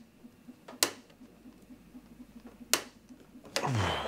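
Two sharp, isolated clicks about two seconds apart while a weighted 3D-printed robot arm joint is handled, then near the end a man's strained, wordless vocal sound starts and swells in level.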